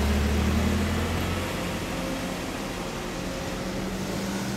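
Two-stroke V-twin of a 1994 Honda NSR250R SE idling through a Dog Fight R expansion chamber and silencer: a steady hum, with a deeper rumble that fades out about a second and a half in.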